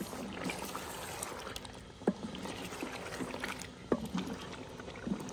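A ladle stirring chicken pieces through thick gravy in a clay cooking pot: wet sloshing and scraping, with two sharp knocks of the ladle against the pot about two and four seconds in.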